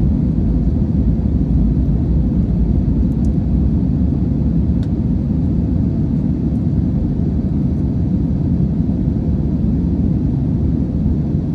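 Steady low rumble of an Airbus A320's jet engines and rushing air, heard inside the passenger cabin from a rear window seat as the aircraft climbs after takeoff.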